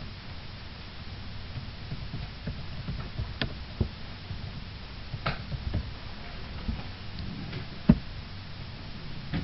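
Scattered light clicks and knocks at uneven intervals over a low rumble, with one sharper click about eight seconds in.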